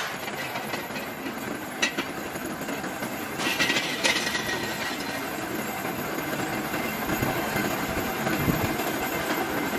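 Rim-rolling machine running, its grooved steel rollers turning and pressing an iron wheel rim: a steady metallic rumble with a sharp clank about two seconds in and a brief higher scraping sound about three and a half seconds in.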